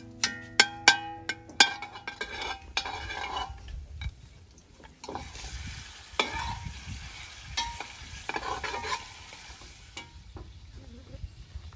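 A metal ladle clanking against an aluminium pot several times in quick succession, the pot ringing after each strike, then garlic and pork bones sizzling in hot soybean oil as they are stirred, with a few more ladle knocks.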